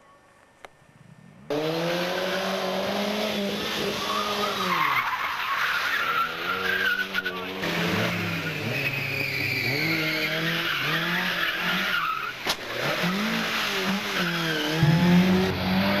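Rally cars' engines revving hard, the pitch climbing and dropping again and again through the gears, with tyres squealing through corners. The first second and a half is near silence before the engine sound cuts in abruptly.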